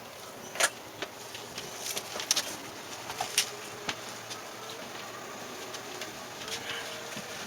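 A few scattered clicks and knocks, as of parts and packing being handled, over a steady hiss; the sharpest comes about half a second in, with more between two and four seconds in.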